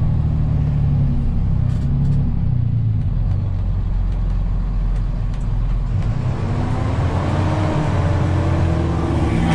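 Rollback tow truck's engine and road noise heard from inside the cab while driving. In the last few seconds the engine note climbs steadily.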